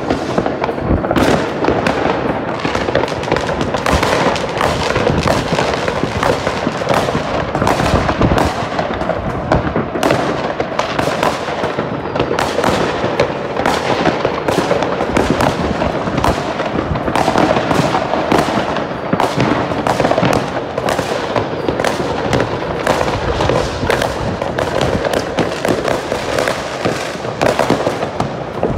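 Many fireworks and firecrackers going off at once, near and far: a dense, unbroken crackle of overlapping bangs and pops with no pause.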